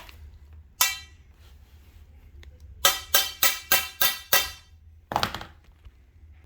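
Taps driving leveling-foot adjustment screws into the ends of steel storage-rack poles: one strike about a second in, a quick run of six at about four a second in the middle, and one more after, each ringing briefly.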